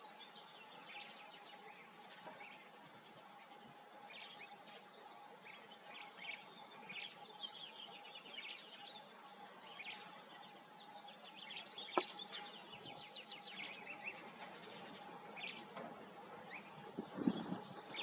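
Small birds chirping and twittering in quick, irregular calls throughout, over a faint steady hum, with one sharp click about twelve seconds in.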